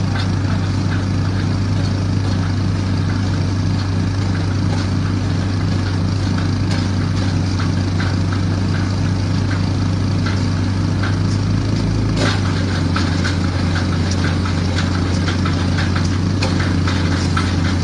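Diesel engine of a piling rig running steadily with a deep hum, with light knocks and clicks scattered through and one sharper knock about twelve seconds in.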